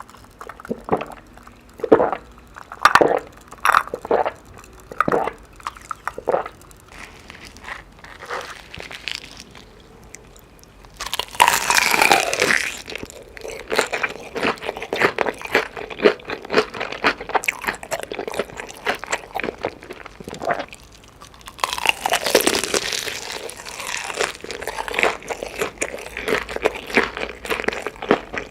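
Chicken being bitten and chewed close to the microphone, with crisp crunches. The first third has separate bites; louder, denser crackling bursts come about eleven and twenty-two seconds in, with steady crunchy chewing between them.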